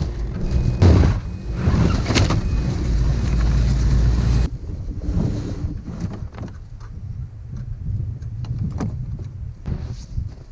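A steady low rumble that cuts off abruptly about four and a half seconds in, followed by scattered metal clicks and crunches as a sled's tow bar is hitched to a snowmobile, with boots stepping in snow near the end.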